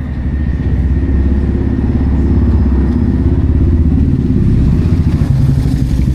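A motor vehicle's engine running close by: a loud, low, rapidly pulsing rumble that builds over the first second, then holds steady.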